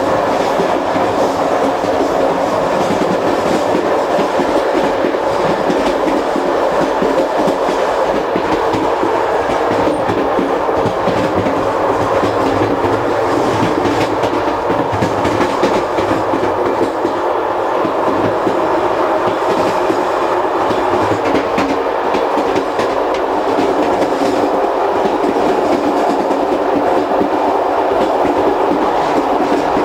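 Running noise heard from the gangway between two Corail coaches of a moving CP Intercidades train: a steady, loud rail rumble with a dense rattle and clatter of wheels and coach connection.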